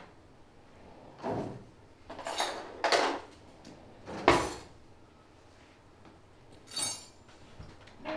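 Kitchen handling noises: about five separate short clatters and knocks a second or two apart, the loudest a sharp knock about four seconds in, over a quiet room.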